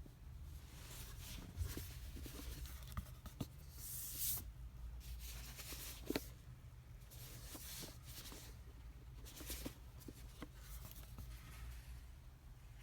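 Faint rustling and scraping of packaging being handled during an unboxing, in several scratchy swells, with a few sharp clicks and a steady low hum underneath.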